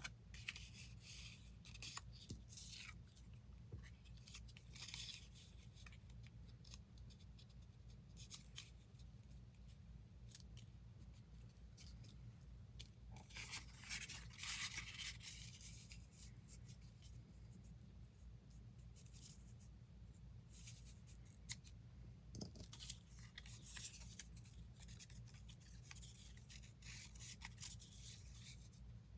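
Faint rustling and crackling of paper cutouts being picked up, moved and pressed down by hand on a cutting mat, with a longer stretch of rustling paper about fourteen seconds in. A low steady hum runs underneath.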